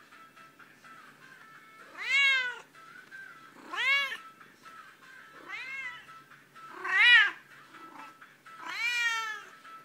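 Bengal cat in heat calling: five loud, drawn-out meows about a second and a half apart, each rising and then falling in pitch.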